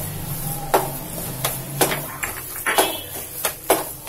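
A cooking spoon stirring thick grated-carrot halwa in a kadhai, knocking and scraping against the pan about twice a second at an uneven pace, over a low steady hum.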